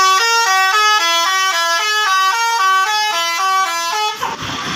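Bus telolet horn, a Basuri multi-trumpet musical air horn, playing a fast melody: several notes sound together and step up and down in pitch several times a second. The tune cuts off suddenly about four seconds in.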